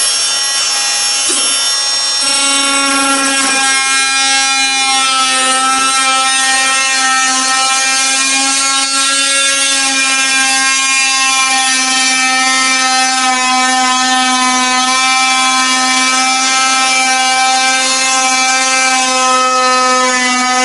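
Oscillating multi-tool running at a steady pitch, its blade cutting into the epoxy-coated cedar strip and fiberglass at the base of a kayak's cockpit coaming: a loud, unbroken buzzing whine.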